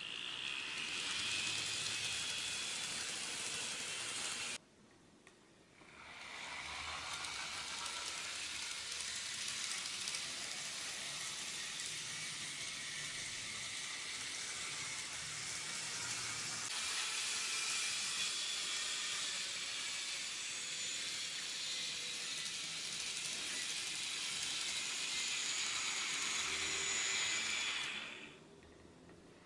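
N gauge model trains running on the layout's track: a steady whirring hiss of small motors and wheels. It cuts out for about a second and a half about five seconds in, then resumes, and falls away again near the end.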